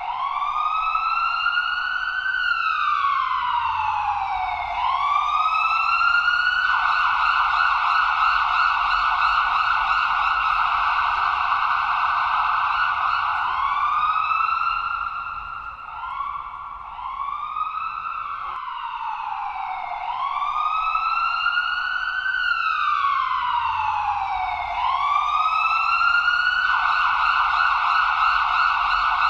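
Ambulance siren cycling through its patterns. Slow rising-and-falling wails alternate with long stretches of fast yelp, and a few quick short whoops come about halfway through.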